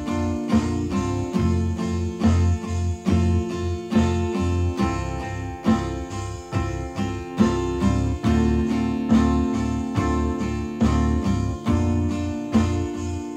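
Steel-string Yamaha acoustic guitar played solo, with a capo on the neck, plucked and strummed in a steady rhythm.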